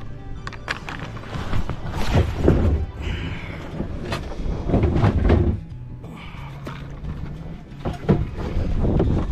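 Background music with sustained low notes, with several loud noisy thumps and scrapes on top, the biggest about two and five seconds in and a sharp knock near the end.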